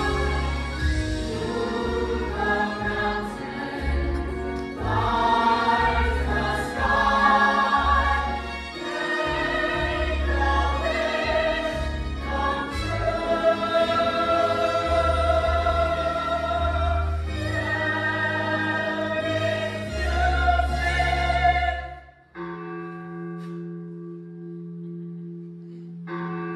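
Stage-musical cast singing together as a choir with musical accompaniment and a strong bass line. About 22 seconds in the full sound drops away suddenly, leaving a quieter held instrumental chord.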